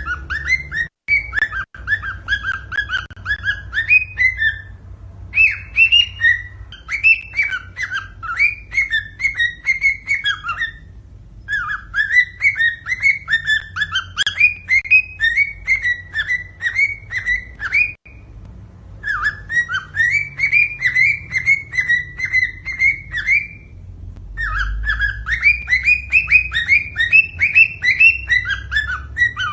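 Cockatiel singing: quick runs of short whistled notes, several a second, in phrases of a few seconds broken by brief pauses.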